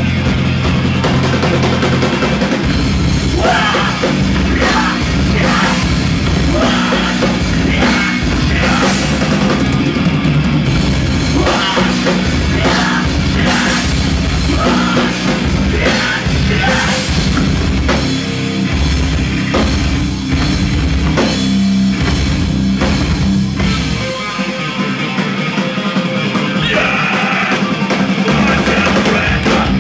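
Heavy rock band playing live: distorted electric guitar and bass over a drum kit. About 24 seconds in the bass and kick drop out for a few seconds, then the full band comes back in.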